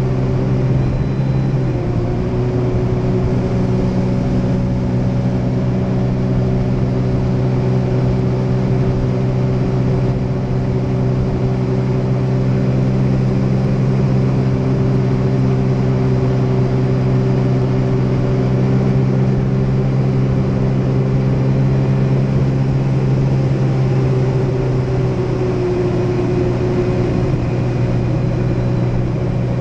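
Jet ski engine running steadily under way on the water, a constant drone holding one pitch.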